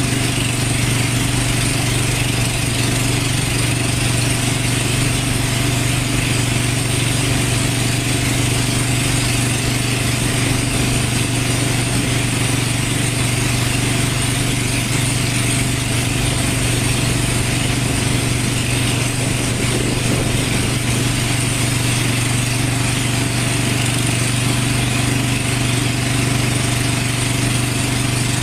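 Small boat's engine running steadily while under way, an unbroken low hum with an even hiss over it.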